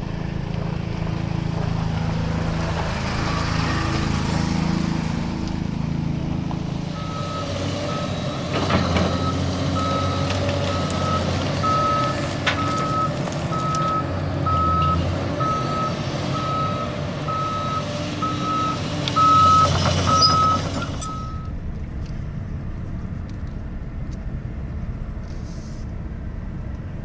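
Heavy truck's engine running while its reversing alarm beeps steadily, about once a second, for roughly fifteen seconds, with a brief loud rush of noise near the end of the beeping; the truck is backing up.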